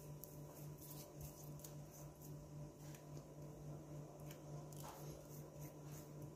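Faint, soft squishing and light scattered taps as tamarind paste is smeared by hand onto mackerel in a stainless steel bowl, over a steady low electrical hum.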